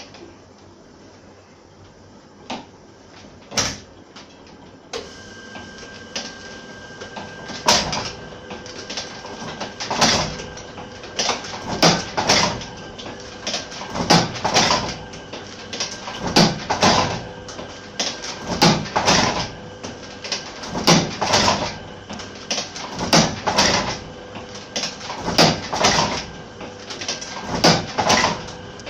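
Fifty-year-old platen letterpress running as sweet-box cartons are hand-fed into it. It makes a heavy clack about every two seconds as the platen closes for each impression, over a steady hum that starts about five seconds in. The first few seconds hold only a couple of single clicks.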